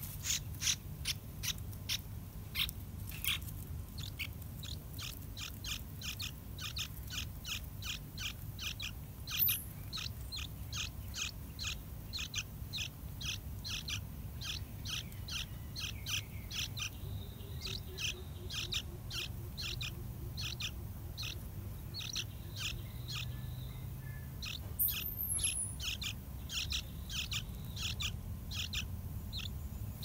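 Yellow-vented bulbul nestlings begging at the nest with a steady run of short, high chirps, about three a second, pausing for a few seconds a little past the middle.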